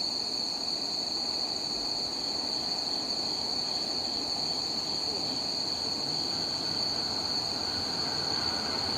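Insects chirping in a steady, evenly pulsing high trill, over a low, steady rumble from an approaching electric train.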